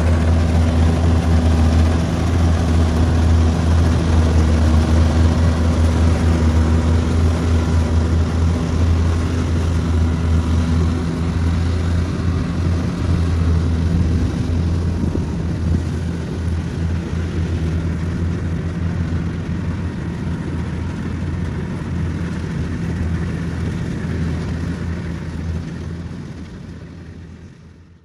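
Kubota rice combine harvester's engine and threshing machinery running steadily under load while cutting rice, with a constant low hum over a broad mechanical rush. The sound fades out near the end.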